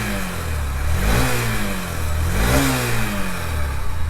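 Honda SP 125 single-cylinder motorcycle engine being blipped on the throttle, revving up and dropping back three times. After a failed bearing was replaced, it runs smoothly, described as smooth as butter, like a new bike.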